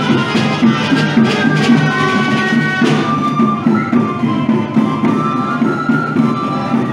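Gralles (Catalan shawms) playing a lively folk dance tune in unison over a steady beat on timbal drums: a traditional street band accompanying dancing giants.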